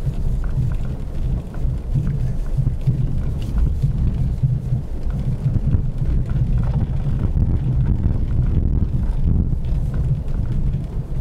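Steady low rumble of a car driving over rutted, packed snow, heard through a dashcam inside the cabin, with a few faint clicks.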